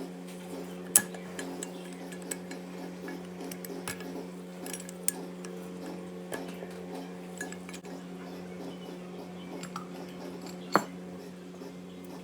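Scattered small metal clinks and taps of a deep socket, extension and valve keepers being worked on a Honda B16 cylinder head's valve spring, with a sharp clink about a second in and another near the end, over a steady low hum.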